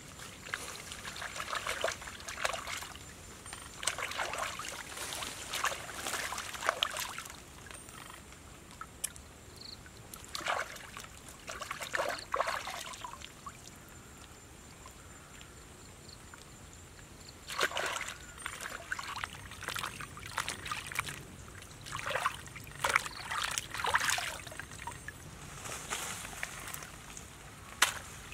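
River water splashing and dribbling as raw squid are rinsed by hand, lifted and dunked so water runs off them, in irregular bursts with a quiet few seconds in the middle.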